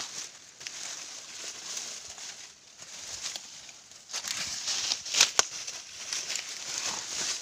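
Dry corn stalks and leaves rustling and crackling in uneven spells as someone pushes through them on foot, with two sharp cracks a little after five seconds in.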